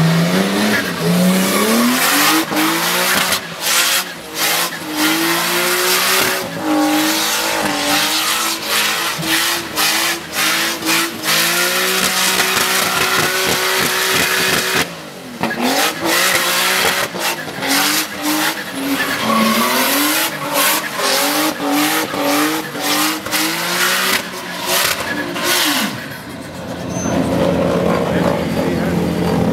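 Nissan R32 Skyline with an RB25DET turbocharged straight-six revving hard while drifting in circles, its pitch climbing and dropping over and over, with the rear tyres squealing as they spin and smoke. The revs dip briefly about halfway through and fall away near the end.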